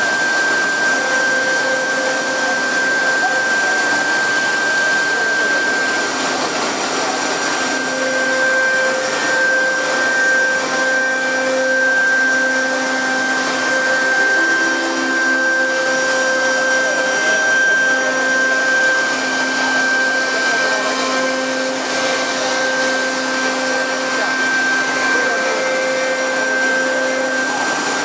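The two 3.5 kW air-cooled spindles of a double-head CNC router whine at a steady high pitch while carving a pattern into a wood panel, over the hiss of the cutting. Lower hums come and go underneath.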